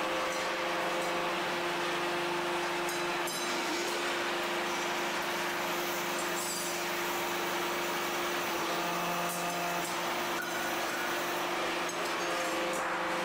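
Metal-working factory machinery running: a steady mechanical hum with a held whine and noise, and a few faint clicks.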